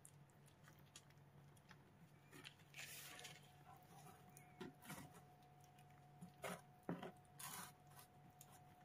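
Faint, irregular wet clicks and smacks of a young kitten licking and chewing soft paste food, mixed with soft crinkles of a plastic treat sachet being squeezed out beside it.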